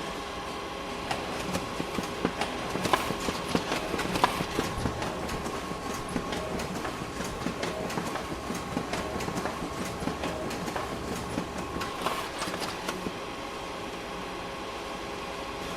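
Office printer running: a steady mechanical hum with a rapid, irregular clicking and rattling of its paper-feed mechanism, busiest for most of the stretch and settling to a plainer hum near the end.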